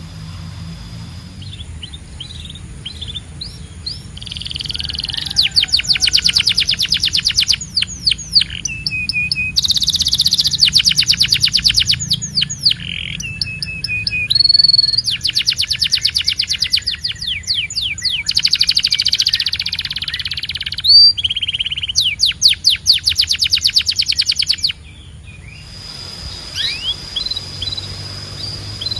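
Domestic canary singing a long song made of rapid trills, each a fast run of repeated notes that changes pitch and pattern every second or two, with a few held whistled notes between. The song breaks off near the end, leaving a few faint chirps over a low hum.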